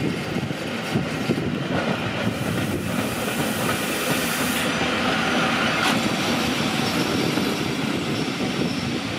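Rhaetian Railway Ge 6/6 II electric locomotive rolling past at low speed, its wheels clattering over rail joints and points. A hiss rises over the clatter in the middle.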